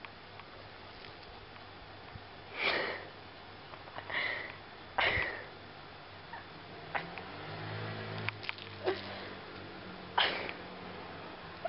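A black-and-white cat giving short breathy huffs with its mouth open, about five of them spread out, each under half a second, over a faint low hum.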